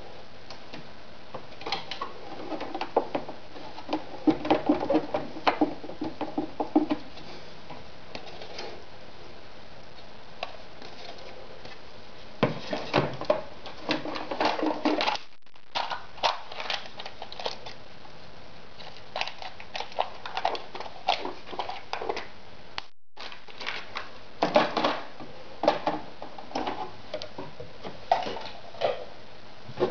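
Hands handling a stitched fabric sample and small hard plastic parts around a sewing machine while it is not running: irregular rustles, taps and light clicks in several clusters, with quieter pauses between them.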